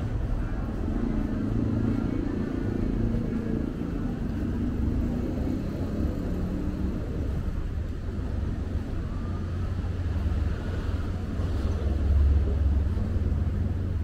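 City street traffic: cars and motorbikes passing with a steady low rumble, swelling slightly about twelve seconds in.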